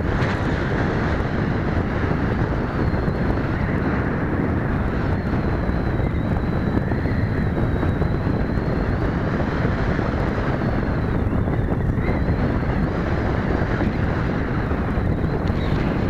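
Wind buffeting the microphone, the loudest sound, with a faint high whine behind it that wavers in pitch, from the sailplane's small Cox glow engines running in the distance.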